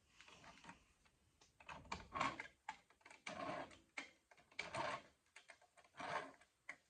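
Metal clicks and knocks from the bench vise and its mounting hardware being worked into place, in short bursts about every second and a half.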